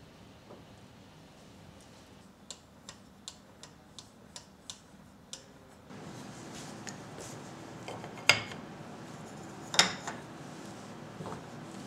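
Woodworking bench vise being turned by its handle, giving a run of about seven light ticks roughly two a second. Then, near the end, two sharp knocks as wooden strips are set down on the wooden bench top.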